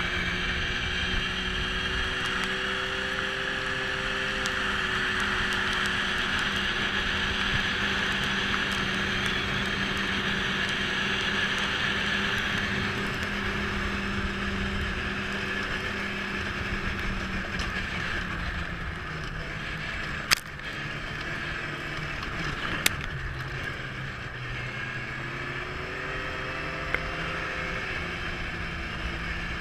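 Snowmobile engine running at a steady cruise while being ridden. Its note drops a little past the midpoint and climbs again near the end, and two sharp clicks sound in the second half.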